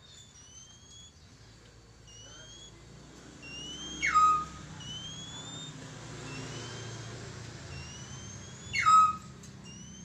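Oriental magpie-robin (kacer) singing: a series of short rising whistles, roughly one a second, broken by two loud downward-sweeping calls about four seconds and nine seconds in.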